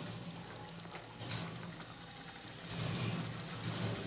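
Chicken simmering in a watery broth in an aluminium pot: a steady bubbling, crackling hiss as the liquid boils down, with a low hum underneath.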